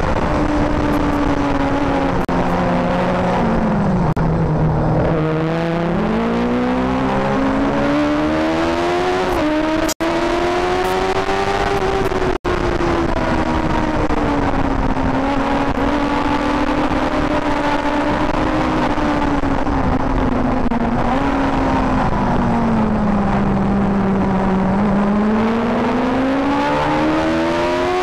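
Honda CBR400RR Tri-Arm's inline-four engine running hard on track, heard from the bike itself. The pitch falls as the revs drop, lowest about four seconds in and again near twenty-four seconds, and climbs back up as it accelerates between corners.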